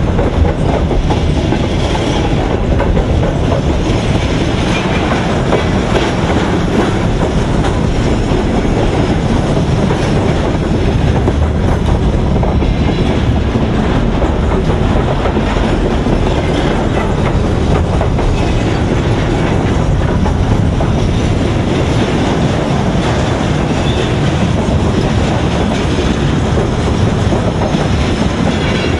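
Freight train of container flatcars and tank cars rolling past close by: a steady, loud rumble and clatter of steel wheels on the rails.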